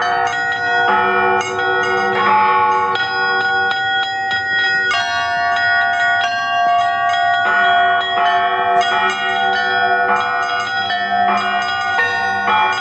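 Russian Orthodox church bells rung by hand from their ropes in the belfry. A first-time ringer strikes several bells in a quick, uneven jangle over their continuing hum; the result is somewhat abstract music.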